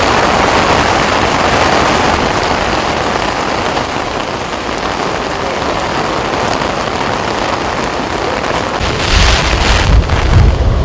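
Steady rushing hiss of water pouring down a dam's open spillway gates. From about nine seconds in, gusty low buffeting of wind on the microphone joins it and gets louder.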